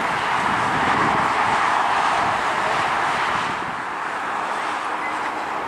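Twin jet engines of a Boeing 737 airliner at takeoff thrust on its takeoff roll: a steady, loud rushing noise that grows somewhat quieter about three and a half seconds in.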